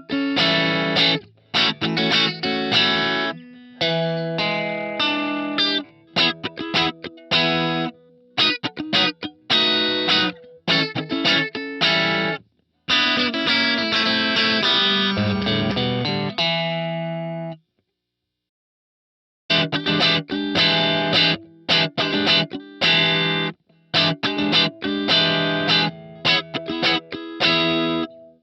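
Telecaster-style electric guitar played through a JHS Colorbox preamp into a Marshall JTM45 amp simulation, lightly overdriven, playing choppy chords and riffs with short stops. The playing breaks off for about two seconds about two-thirds of the way in, then starts again.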